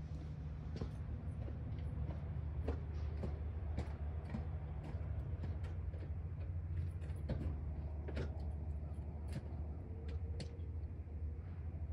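A diesel truck engine idling steadily with a low rumble, with scattered light clicks and taps over it.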